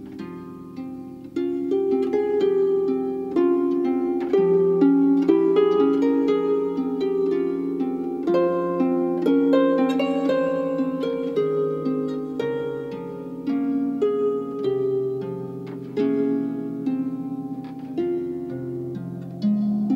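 Instrumental music: a flowing run of plucked notes over held low notes.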